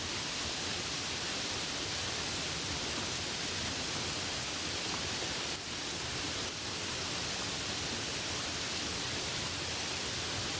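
Light rain falling steadily, an even hiss of many small drops.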